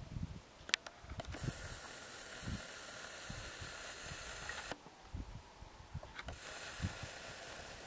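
Wind buffeting the camera's microphone in uneven low thumps, with two stretches of steady high hiss that start and stop abruptly.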